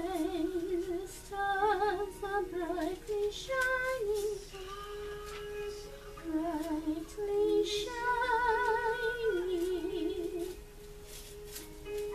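A woman singing a slow melody, holding each note for up to about a second with a wavering vibrato.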